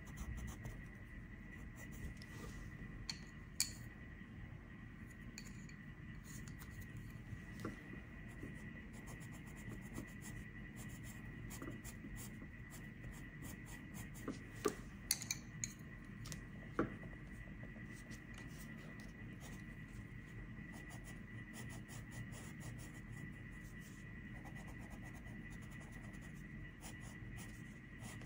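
Coloured pencil shading on paper, a soft continuous scratching. About halfway through comes a cluster of sharp clicks from the wooden pencils knocking together as colours are swapped.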